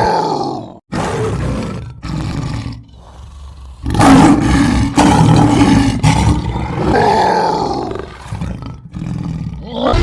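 Loud animal roars, several in a row with short gaps between them, the loudest about four to six seconds in and another about seven seconds in that rises and falls in pitch.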